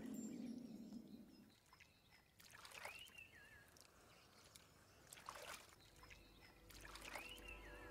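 Faint creaking of a wooden boat's timbers: two drawn-out creaks that rise and then waver down in pitch, with scattered small clicks. Under them at the start is a low rumble that stops about a second and a half in.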